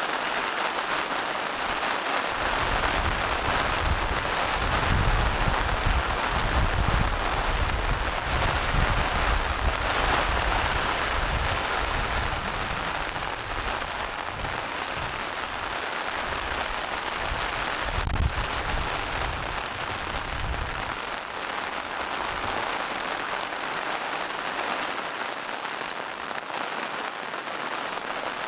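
Steady rain falling on forest leaves and rocks, an even hiss throughout. A low rumble rises under it for most of the first two-thirds and fades out after about 21 seconds.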